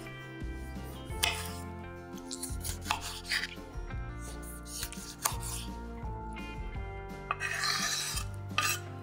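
Kitchen knife chopping a tomato on a wooden cutting board: a few sharp cuts through the flesh onto the board. Near the end, about a second of scraping as the diced tomato is pushed off the board into a glass baking dish. Background music plays throughout.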